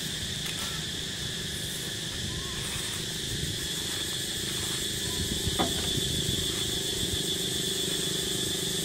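Steady, high-pitched drone of insects chirring in the surrounding forest, over a low background rumble. A brief squeak comes about five and a half seconds in.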